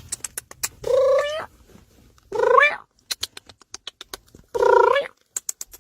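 A cat giving three drawn-out, rising calls, the muffled yowl a cat makes while carrying a toy to present to its owner. Short sharp clicks fall between the calls.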